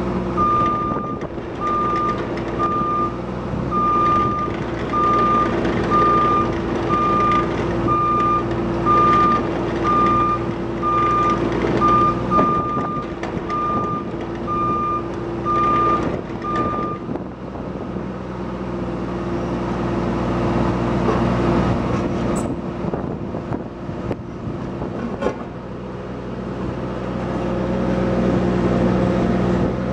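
Caterpillar 302.5C mini excavator's diesel engine running steadily while its travel alarm beeps about once a second, the beeping stopping about halfway through. The engine carries on alone after that, with a couple of sharp clanks near the end.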